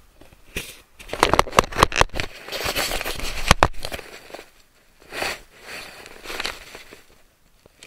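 Handling noise from an action camera in a plastic waterproof housing: a burst of knocks, clicks and crackly scraping in the first half, then two softer rubs a few seconds later.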